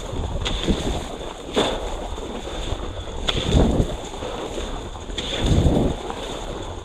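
Wind rushing and buffeting over the microphone in repeated swells, with a short sharp click every second and a half or two.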